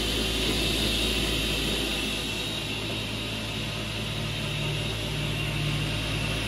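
Salvador Superpush 300 optimizing crosscut saw running steadily, a constant machine whir with no cut heard. A low hum joins in about four seconds in.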